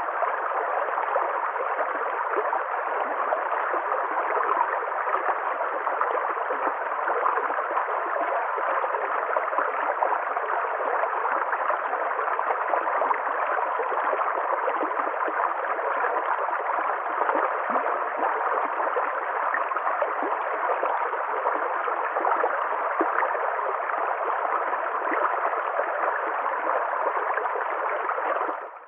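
Water running steadily in a stream.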